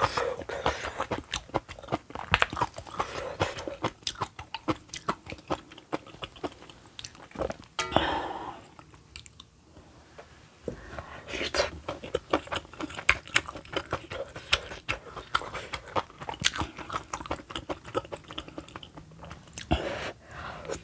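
Close-miked wet chewing and mouth clicks of a person eating spicy kimchi stew with kimchi cabbage and rice, soft smacks coming irregularly several times a second, with a short quieter pause about halfway through.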